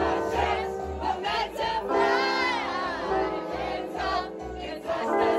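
A song with sung vocals playing; about two seconds in, a voice holds a long wavering note.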